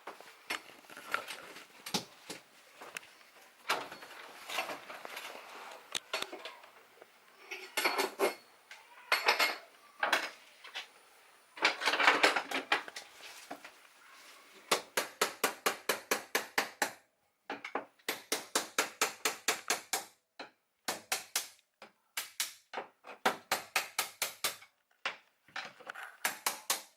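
Hand tools breaking up water-damaged floor tile and subfloor: scraping and scattered knocks, then, from about halfway, runs of quick, even hammer taps, about five a second, with short pauses between runs.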